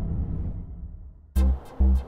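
Electronic intro music: a sustained sound fades out, then about two-thirds of the way in an electronic dance beat starts, with heavy kick drums and sharp high hits about twice a second.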